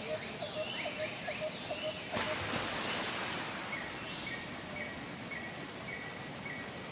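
Muddy floodwater rushing down a rocky slope: a steady noise that grows louder about two seconds in. Rhythmic chirping calls from small animals repeat over it, a few a second.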